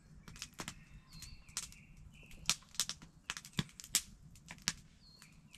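Wood campfire crackling, with irregular sharp pops several times a second, and a few short bird chirps in the background.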